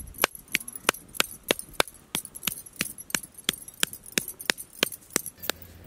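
Kitchen knife chopping raw mutton into mince (keema) on a wooden log chopping block, in even strokes about three a second, stopping near the end.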